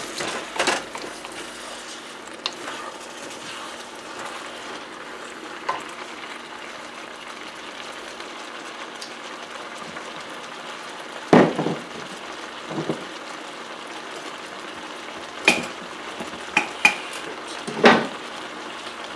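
Vegetables frying in a steel wok on high heat: a steady low sizzle, held down because the wok is crowded with vegetables. A few sharp knocks break through, the loudest about 11 s in and a cluster near the end.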